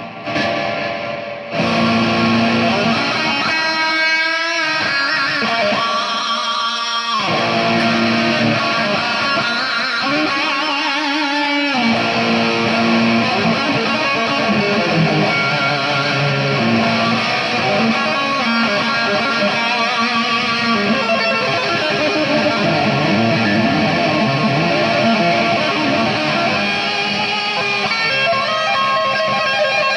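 Electric guitar played loud and sustained, starting abruptly, with a few sliding pitch changes in the first dozen seconds.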